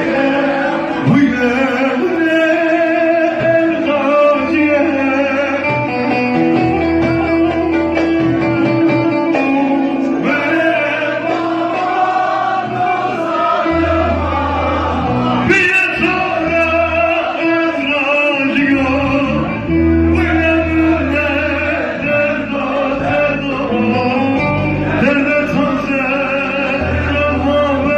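Male voice singing a Kurdish-language song over instrumental accompaniment with sustained bass notes.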